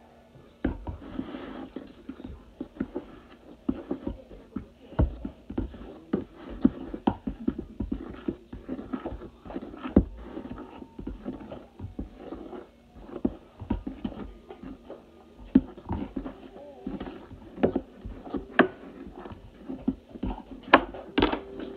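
A metal utensil stirring pancake batter in a plastic mixing bowl, knocking and scraping against the bowl in irregular clicks and taps, several a second, starting about a second in.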